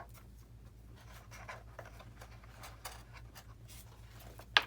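Soft scratching and rustling of hands handling a foam RC model airplane, with one sharp click near the end, over a faint steady low hum.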